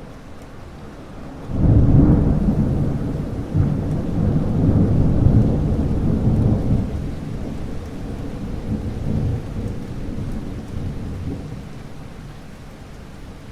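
Thunderstorm: a loud, deep thunderclap breaks about a second and a half in and rumbles on for several seconds before slowly fading, over steady rain.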